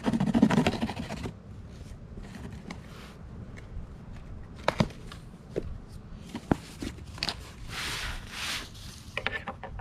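A mystery-box package being opened by hand: rubbing and scraping with scattered sharp clicks, and about a second of rustling, tearing-like noise near the end.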